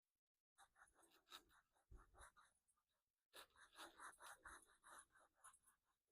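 Faint, scratchy rubbing strokes of hand scrubbing on the stripped wooden cabinet of a Philco Model 70 radio, working off loosened old finish. There are two runs of quick back-and-forth strokes, the first starting about half a second in and the second a little after three seconds.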